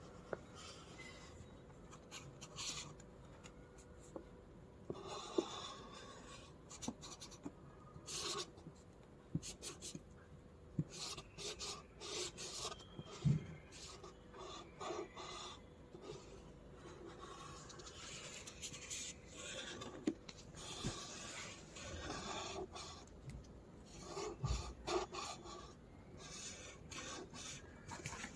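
Black felt-tip marker scratching across paper in short, irregular strokes as it outlines a paper cut-out on a paper-covered box. Two soft knocks are heard, the louder about halfway through.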